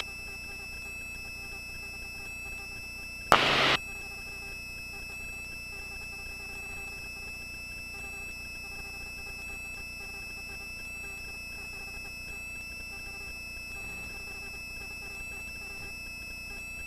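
Helicopter intercom feed between transmissions: a steady low hum and hiss with several thin, steady high-pitched tones. A short, loud burst of noise comes about three and a half seconds in.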